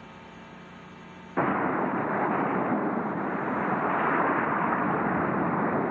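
Faint music of sustained tones cuts off about a second and a half in, and a loud, steady rushing noise starts abruptly and carries on.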